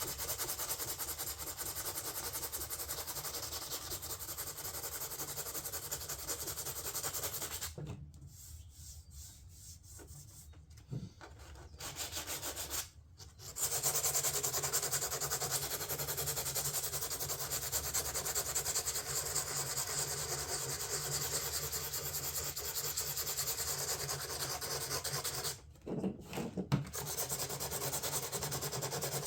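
Sandpaper sanding a fiberglass door panel with light pressure, a steady scratchy rubbing. It stops for a few seconds about eight seconds in, drops out briefly again, and pauses once more for about a second near the end.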